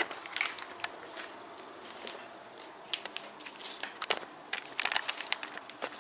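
Handling noise: light crinkling and scattered small clicks at close range, busiest about four to five seconds in.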